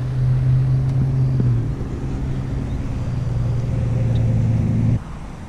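A steady low motor hum, dropping slightly in pitch about a second and a half in and cutting off suddenly near the end.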